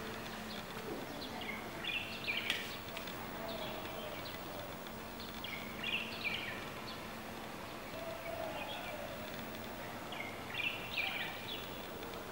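Small birds chirping in three short runs of quick, high chirps, a few seconds apart, over a steady faint background hum.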